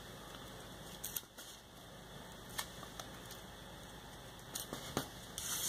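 Faint paper handling: sheets of paper being pressed and smoothed down by hand while they are taped together, with a few light ticks and a short louder rustle near the end.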